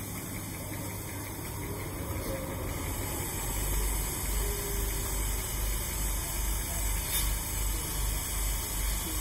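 Class 86 electric locomotive E3137 running with a steady mechanical hum. A low throbbing rumble swells about three to four seconds in.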